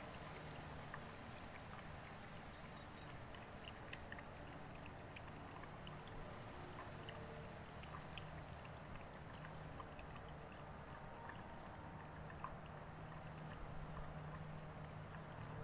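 Dog lapping chicken broth from a bowl: faint, irregular wet licking clicks over a steady low hum.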